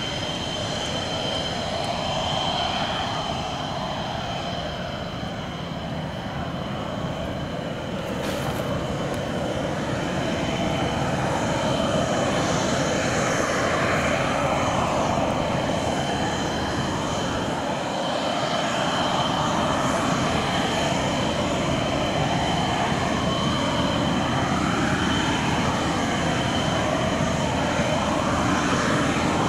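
JF-17 Thunder's single Klimov RD-93 turbofan running steadily on the ground at low power, a continuous jet roar with a high whine and a slowly swirling, phasing quality. It grows a little louder about twelve seconds in.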